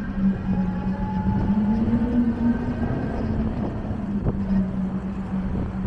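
City road traffic with a steady low engine hum that wavers slightly in pitch, and a single sharp click a little after four seconds in.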